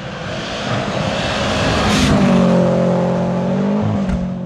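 Rally car at full speed on a gravel stage, growing louder as it approaches, loudest about two seconds in with a brief hiss as it goes by, then its engine note dropping in pitch as it pulls away.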